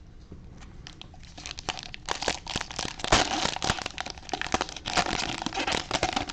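Plastic trading-card packaging crinkling and tearing as it is handled and ripped open: a dense run of irregular crackles and rustles that grows busier after the first second or so.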